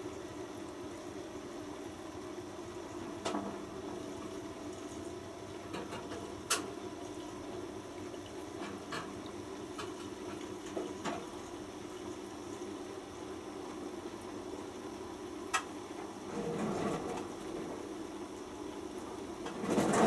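Bosch WFP3300 front-loading washing machine tumbling laundry in water: a steady motor hum with water swishing in the drum, a few sharp clicks, and louder sloshes about three-quarters of the way through and at the end.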